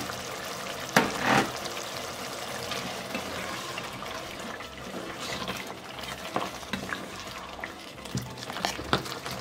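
Wooden spoon stirring a pot of steaming tomato sauce, over a steady simmering hiss, with a few light knocks of the spoon against the pot; the strongest comes about a second in.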